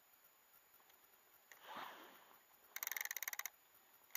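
Small reel of an ice-fishing rod clicking rapidly for under a second, about twenty clicks a second, as line is wound or let out. A few more clicks follow near the end, with a soft whoosh about a second before the first run.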